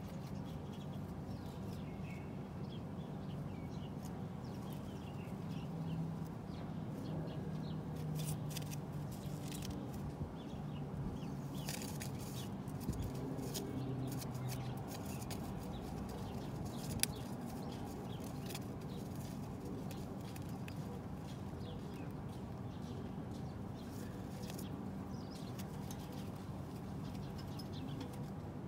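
Rock pigeons close by: feathers rustling and feet and beaks scratching, with scattered clicks and one sharp click about two-thirds of the way through. A low coo wavers through the middle.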